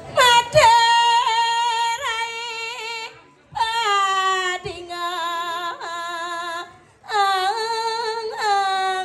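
A woman singing solo and unaccompanied in a high voice, in long held notes with the pitch sliding into each one. There are three phrases, with short breaks for breath about 3 and 7 seconds in.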